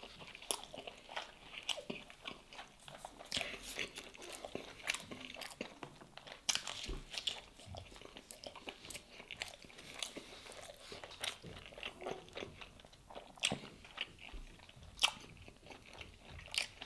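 Close-miked chewing of baked stuffed bread, with soft irregular mouth clicks and crunches throughout.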